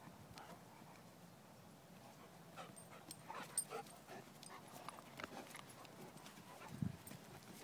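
Two flat-coated retrievers play-wrestling: faint, scattered short dog sounds and scuffling, with a few louder short sounds in the second half.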